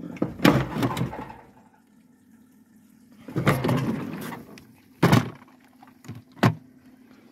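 Camperclean cassette toilet cleaning machine at work: two bursts of rushing, sloshing water, then two sharp knocks.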